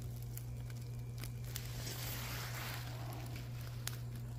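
Small fire of sticks and paper in a rusty metal burn barrel crackling faintly with scattered pops, a soft hissing rush about two seconds in, over a steady low hum.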